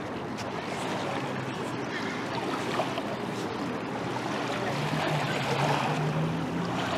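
Steady wind on the microphone with small waves lapping at a sandy shore. A faint low hum joins about five seconds in.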